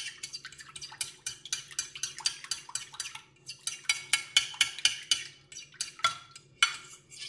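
A fork whisking milk and egg in a glass Pyrex dish: rapid clicks of the tines against the glass, about five strokes a second, with a short break about three seconds in.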